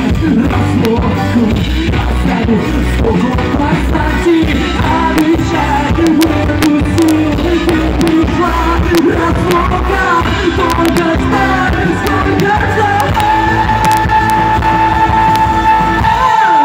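Live rock band playing loudly, ending on a long held note near the end before the music stops abruptly.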